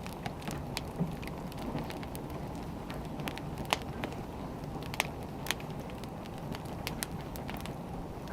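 Firewood burning: a steady low rush with irregular sharp crackles and pops, a few of them louder.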